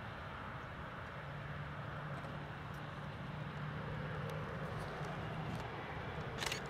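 Embraer E195 regional jet's two CF34 turbofan engines at taxi power, a steady distant jet hum that grows slowly louder as the airliner turns onto the runway. A brief rush of noise comes near the end.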